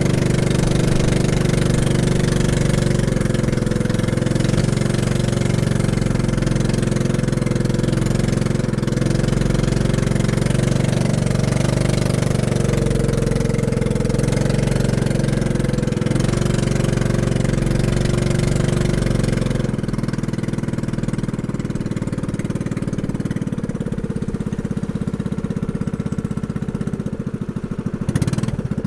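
Outrigger boat's engine running steadily, then easing off to a lower, quieter note about two-thirds of the way through, with a brief thump near the end.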